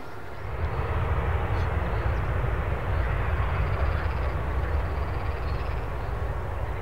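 Jet airliner's engines passing close by: a deep rumble with a rushing hiss above it. It swells about half a second in and then holds steady.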